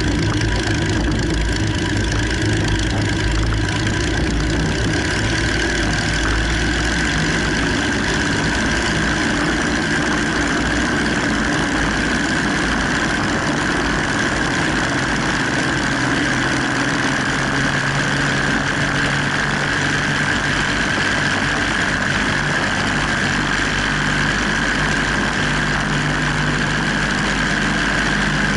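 Small biplane's piston engine and propeller running steadily, heard close up from the open cockpit as the plane rolls along the runway; the engine note shifts a little about halfway through.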